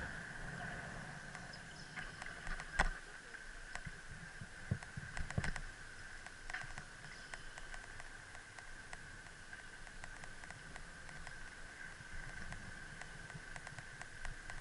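Bicycle riding along a paved street, heard from a camera mounted on the bike: a steady hum from the rolling ride with knocks and rattles as it goes over bumps, the sharpest about three seconds in and a few more around five seconds.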